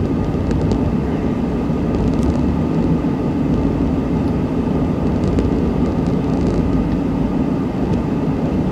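Honda Ridgeline's V6 engine and road noise, heard from inside the cab, running steadily under load while towing a trailer of about 3,000 pounds.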